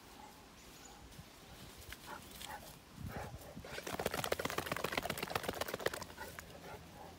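Wet Saint Bernard shaking water off his coat, ears and jowls flapping in a fast rhythm. It starts about three seconds in, is loudest in the middle and stops about a second before the end.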